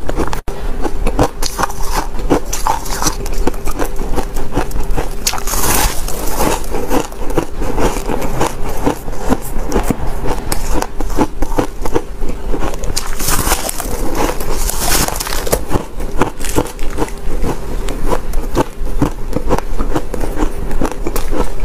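Biting and chewing a chunk of refrozen powdery ice: a dense, continuous run of crisp crunches and crackles.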